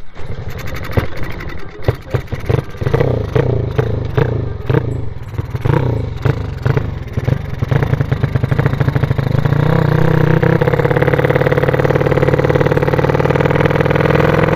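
A 155 cc motorbike engine being bump-started while the bike rolls: it coughs and fires unevenly for several seconds, then catches about nine or ten seconds in and runs loud and steady.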